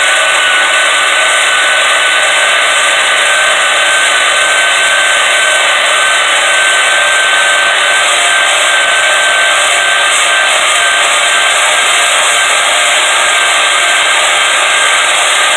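Bauer bandsaw cutting through quarter-inch-thick steel flat bar: a loud, steady hiss of the blade with one high tone held through it.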